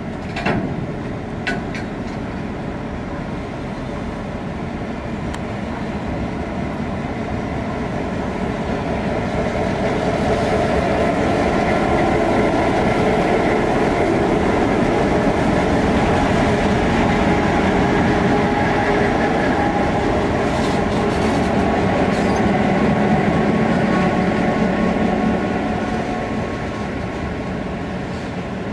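Diesel locomotives of a freight works train (T, P and B class) running past along the platform, engine noise and wheels on the rails swelling to a peak midway as the locomotives go by and then easing off. Two sharp clicks sound in the first couple of seconds.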